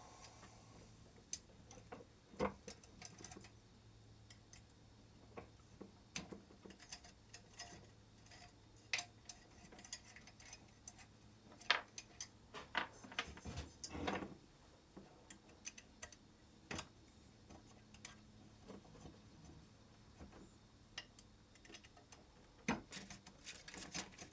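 Scattered light clicks and taps at uneven intervals from small metal hardware and aluminium frame parts being handled and fitted together while hand-assembling a desktop CNC router kit.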